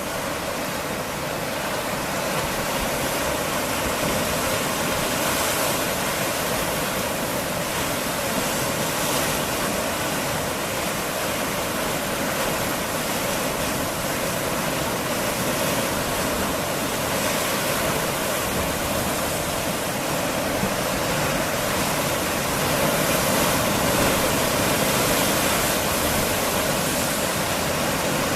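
Sea waves surging and washing against rocks on a rocky shore, a steady rushing wash of water with no distinct breaks.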